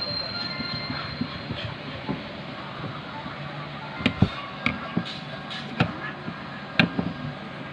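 A run of sharp, short knocks and clicks over a steady background noise, starting about four seconds in.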